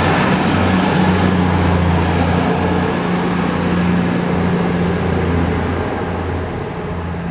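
East Midlands Trains diesel passenger train departing, its engines droning steadily over wheel-on-rail running noise. The sound fades gradually in the last couple of seconds as the train pulls away.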